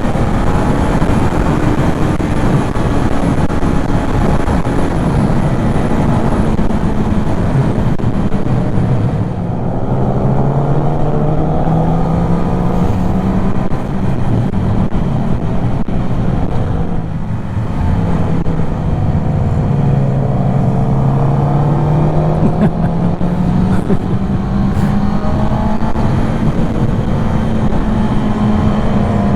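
Motorcycle engine running under way, its pitch rising and falling as the rider accelerates and eases off, with brief dips about ten and seventeen seconds in, over a steady rush of noise.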